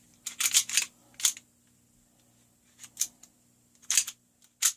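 Sharp metal clicks and small knocks from the parts of a KWC Colt Commander CO2 BB pistol being lined up and fitted back together during reassembly after field stripping: a quick cluster in the first second, then single clicks spread out through the rest.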